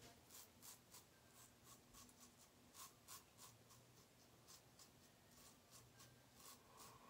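Blackland Sabre safety razor scraping through stubble on the upper lip in quick, faint strokes, several a second at first and more spaced out later.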